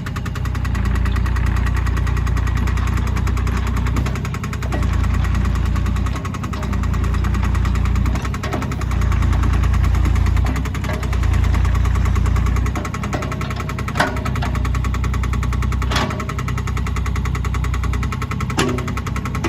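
Diesel engine of a 2008 Cat 303.5C CR mini excavator running, its low rumble swelling and easing every second or two. Three sharp knocks come in the last third.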